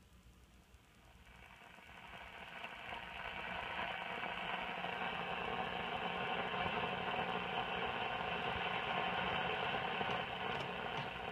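Zenith 9S-262 tube radio coming up after switch-on: static hiss from its speaker swells over a few seconds as the set warms up, then holds steady with a faint hum underneath, no station coming through.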